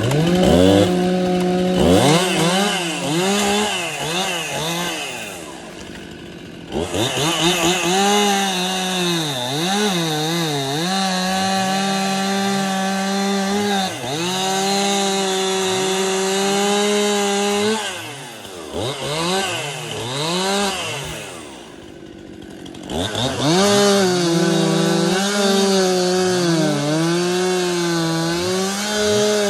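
Stihl MS 261 two-stroke chainsaw cutting wood at full throttle, its pitch wavering as the chain loads in the cut. It drops off and blips back up twice between cuts.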